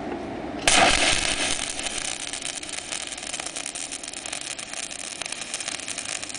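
Stick-welding arc from a Dedra DESI200 inverter welder running a 3.25 mm coated electrode at 150 A. The arc strikes sharply about a second in, loudest at the strike, then crackles and hisses steadily as the electrode burns.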